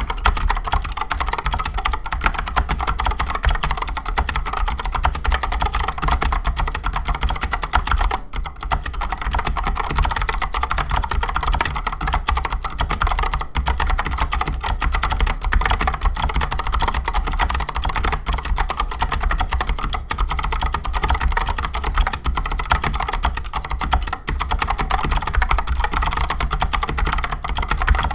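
Continuous typing on a Keychron C2 full-size mechanical keyboard with Outemu Phoenix clicky 62g switches and PBT XDA-profile keycaps: a dense, steady stream of sharp, overlapping key clicks.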